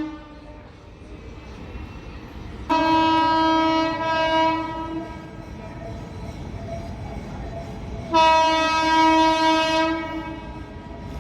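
Indian Railways train horn sounding two long, steady blasts of one pitch, each about two seconds, a few seconds apart, over the low rumble of a running train.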